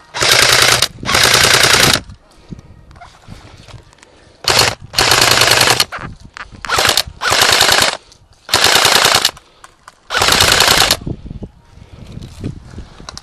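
Airsoft AK-47 rifle firing on full auto in about seven short bursts, each lasting half a second to a second, with quiet gaps between them.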